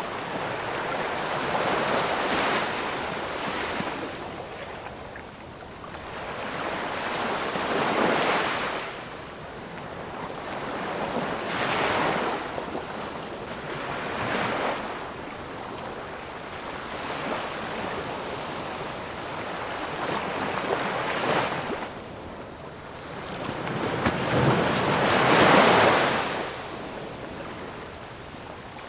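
Ocean waves breaking and washing up on a shore, coming in surges every few seconds, the loudest one near the end.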